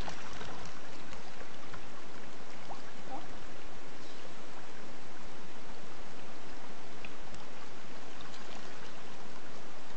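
A dense crowd of fish thrashing at the water's surface, a steady splashing and churning.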